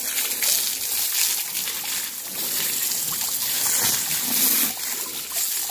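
Strong jet of water from a pump-fed pipe spraying onto a buffalo's hide and splattering on the ground, a steady hiss of spray.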